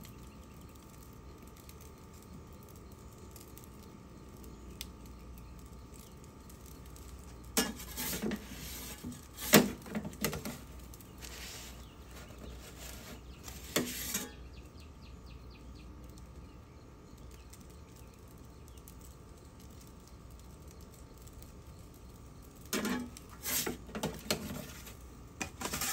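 Metal pizza peel clattering and scraping against the oven's mouth and stone floor as the pizza is turned and lifted, in bursts of sharp clinks about eight seconds in, again near fourteen seconds, and near the end. A steady faint hum runs underneath.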